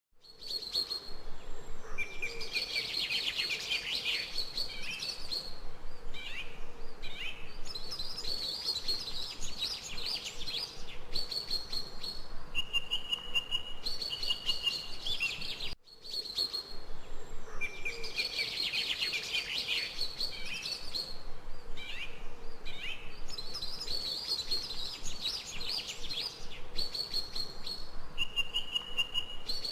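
Several birds singing and chirping, with quick trills and steady whistled notes over a faint, even background hiss. The same stretch of birdsong, about 16 seconds long, plays twice with a brief drop at the join.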